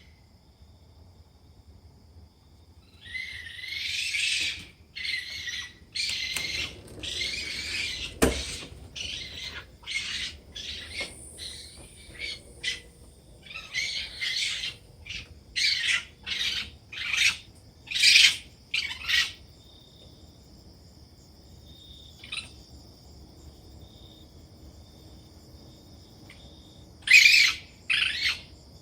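A bird calling over and over in short, high, harsh calls, a run of them repeated about once a second for some fifteen seconds, then two more near the end. A steady high insect-like drone sets in about two-thirds of the way through.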